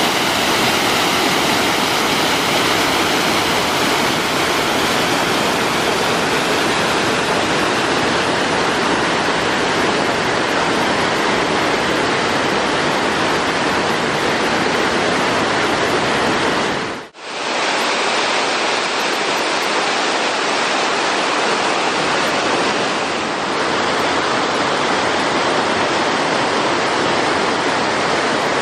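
Steady rush of falling water from a waterfall, a dense even noise. About two-thirds through it fades out for a moment and comes straight back, slightly duller, as at a cut between two recordings.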